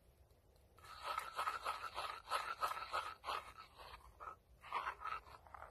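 A spoon stirring a chilli-flake sauce in a small pan, making rapid, rhythmic scraping strokes. The stirring starts about a second in, pauses briefly, and picks up again for a few strokes near the end.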